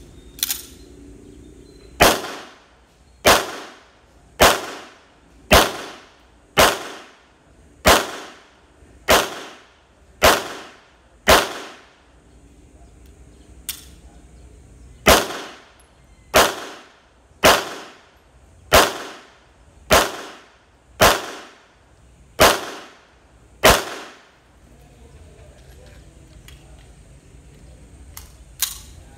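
Semi-automatic pistol firing slow, aimed single shots, about seventeen, one every second or so, with a pause of a few seconds midway; each shot trails a short echo.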